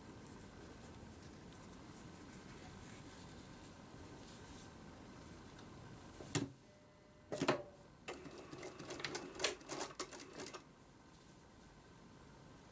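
Industrial sewing machine: two single sharp clicks, then a short burst of rapid clicking and clattering lasting about two and a half seconds, over a faint steady hum.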